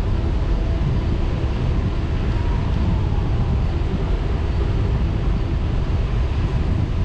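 Steady wind buffeting on the microphone and the rumble of mountain bike tyres rolling on asphalt at riding speed.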